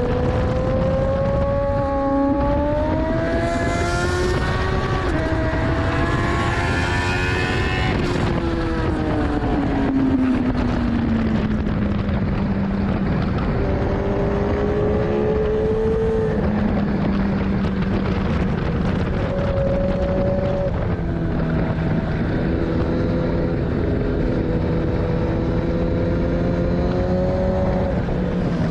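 A 2014 Kawasaki ZX-10R's inline-four engine running at speed on track, heard from a tail-mounted camera with heavy wind rush on the microphone. The engine note climbs for the first several seconds, drops away, then holds lower and steadier with small rises and falls.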